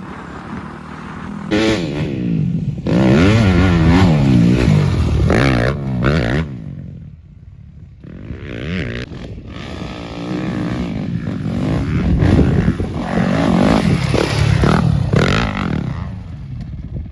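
Dirt bike engine being ridden, its pitch rising and falling again and again with the throttle, with a quieter lull about seven seconds in.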